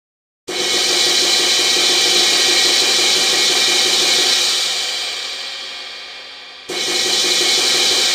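Cymbal roll: a dense, steady shimmering wash that starts suddenly about half a second in, fades away over a couple of seconds, then cuts back in abruptly at full loudness near the end.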